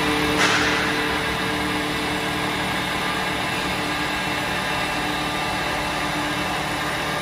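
STL1530 CNC wood lathe turning a wooden blank: a steady motor hum under the hiss of the tool cutting the wood. About half a second in, a sharp burst of cutting noise rises and fades within a second.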